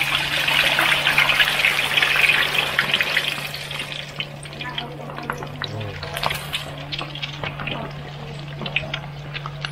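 Boiled duck eggs deep-frying in hot oil in a wok, a loud sizzle that dies down after about four seconds to scattered crackling and popping.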